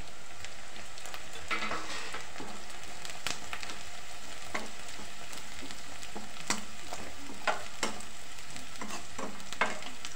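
Chopped garlic, onion, green chillies and capsicum sizzling in hot oil in a metal pan, stirred with a metal spatula that clicks and scrapes against the pan at irregular moments.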